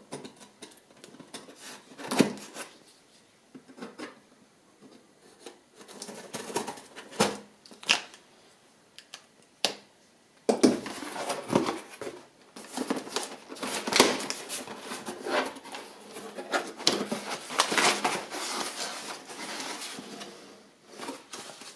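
Cardboard parcel being opened by hand: a knife slitting the packing tape with scattered scrapes and taps, then from about ten seconds in the box flaps opening and crumpled kraft packing paper and a paper leaflet rustling and crackling.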